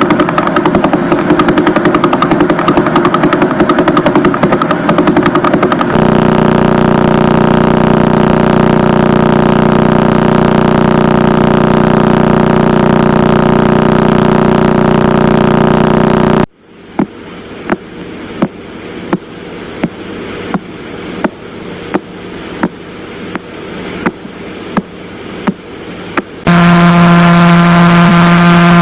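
Pulsar radio signals played as sound, one pulsar after another. A dense, rapid buzz gives way to a steady droning buzz. Past the middle it cuts to single sharp clicks about 0.7 s apart over hiss that swells between them, the pulses of a slowly spinning pulsar, and near the end comes a loud steady hum, pulses so fast they merge into one pitch.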